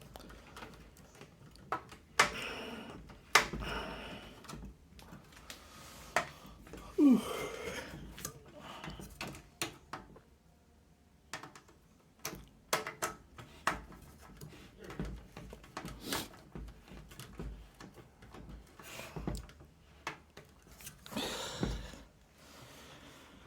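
Irregular clicks, taps and knocks of a screwdriver and screws being worked into a PC case while a case fan is fastened, with a few short scraping rustles between them.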